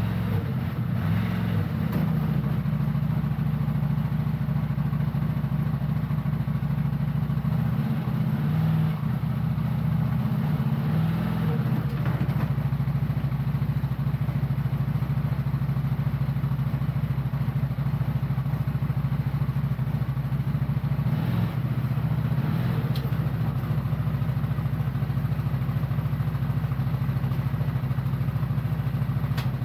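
CFmoto CForce 1000 ATV's V-twin engine running steadily, with slight shifts in its note now and then.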